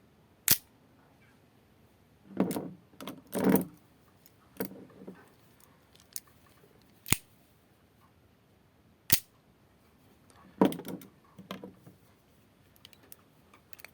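Italian stiletto switchblades being flicked open: several sharp single snaps of the spring-driven blades firing and locking, a few seconds apart, with clusters of duller knocks and rattles from handling the knives in between.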